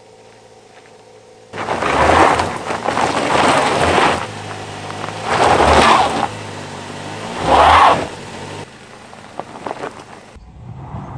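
A van's engine revs hard in about four surges, with a loud rushing noise over it, as the van struggles to climb a slippery dirt slope. The surges start about a second and a half in and stop abruptly a couple of seconds before the end.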